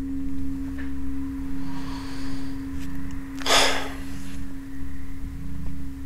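A steady low hum with one clear tone. About three and a half seconds in comes a single short, breathy exhale, like a sigh.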